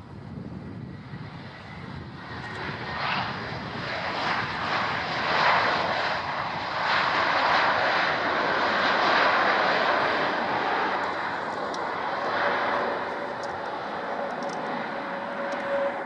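Airbus A320neo's Pratt & Whitney geared turbofan engines running loudly during the landing rollout. The rush builds a couple of seconds in and peaks mid-way, typical of reverse thrust braking the aircraft, then eases. A steady hum comes in near the end.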